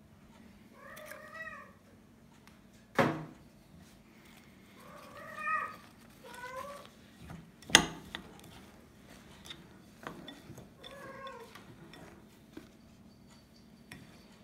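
A domestic cat meowing several times, short rising-and-falling calls. Between the meows a spoon knocks sharply against a glass mixing bowl of stiff cookie dough, twice loudly, about three and eight seconds in, with lighter scraping.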